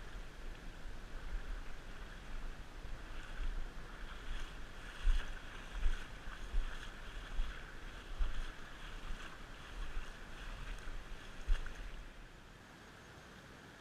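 Wind buffeting the microphone in gusts with irregular low thumps over a steady outdoor hiss; the gusting dies away about twelve seconds in, leaving only a faint steady hiss.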